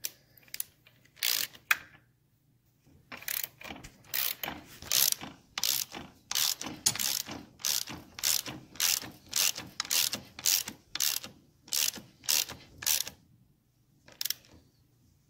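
Hand ratchet wrench clicking as it is swung back and forth, in short bursts about twice a second, tightening the nut that draws the engine sprocket of a Triumph 650 onto its shaft. The clicking stops a couple of seconds before the end.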